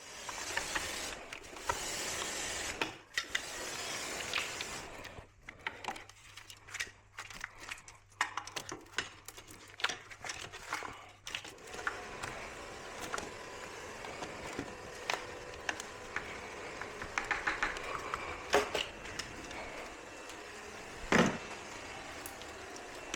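Hand tools working on a car's front end: a stretch of hiss, then runs of ratchet clicks and small metal rattles as bolts come off. A single sharp knock comes near the end.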